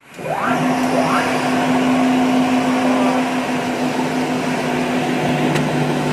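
Cocoa grinding machine's electric motor running with a steady hum and whir. Two short rising whines come in the first second or so.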